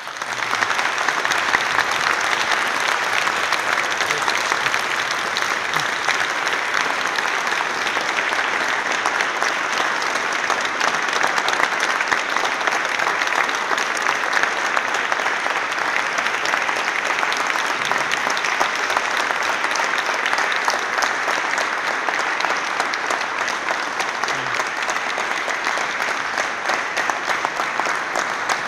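Audience applauding, starting suddenly and going on steadily and loudly as a long ovation.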